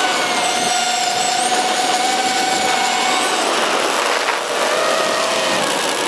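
Emax Buzz racing quadcopter's brushless motors and propellers whining under throttle, heard from the onboard camera with wind rushing past. The pitch holds steady for about three seconds, drops out briefly about four seconds in as the throttle is cut, then comes back at a lower pitch.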